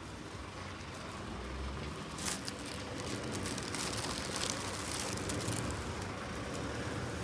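Suburban street ambience: a steady hum of distant traffic that grows a little louder, with a crackling high rustle in the middle few seconds.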